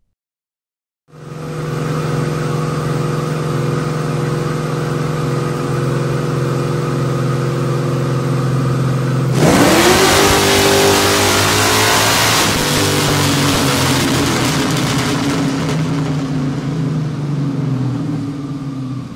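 Modified 1965 Chevrolet Nova's V8 engine running on a chassis dyno. It holds a steady speed, then about nine seconds in goes to full throttle with a sharply rising pull. A few seconds later it eases off and runs down more steadily.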